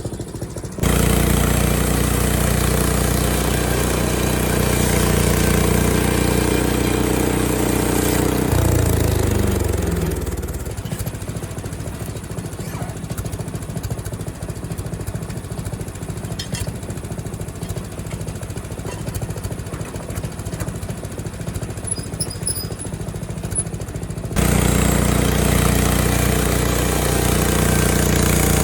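Small gasoline engine of a Frontier OS23 portable bandsaw sawmill running at high revs. About eight seconds in it winds down to a lower idle, and near the end it jumps back up to high revs.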